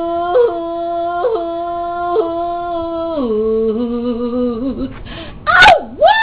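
A woman singing unaccompanied holds a long final note, which steps down to a lower pitch about three seconds in. Near the end comes a loud, howl-like vocal swoop that dips and rises in pitch.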